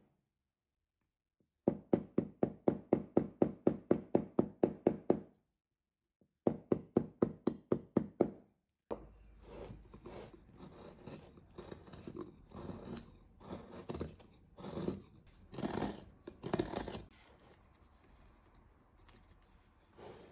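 A carving chisel struck into a block of hard wild cherry wood in two quick, even runs of sharp strikes, about four or five a second. From about nine seconds in, a hand-pushed gouge pares chips off the edge of the block, a string of short, irregular scraping cuts.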